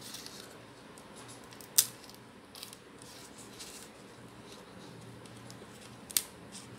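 Crisp clicks and light crackles of a stiff, fresh jackfruit leaf being folded and pierced by a thin coconut-leaf midrib stick, with two sharp snaps, one about two seconds in and one near the end.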